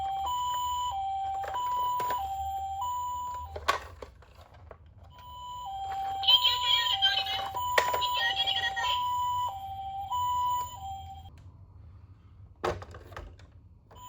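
Toy ambulance minicar's electronic siren sounding the Japanese two-tone 'pi-po' pattern: a higher and a lower beep alternating evenly, in two runs with a pause between them. There is a click after each run, and a harsher noise laid over the tones twice during the second run.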